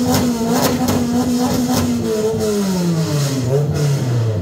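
Car engine running at high revs, then the revs falling steadily over about two seconds as it winds down.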